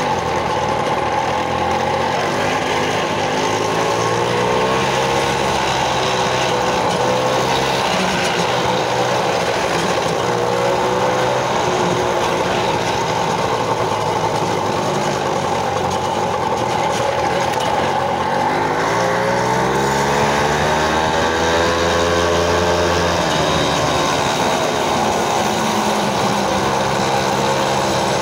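Small moped engine running under way, its note rising and falling as the throttle is worked, with a longer climb in pitch about two-thirds of the way through that drops back suddenly.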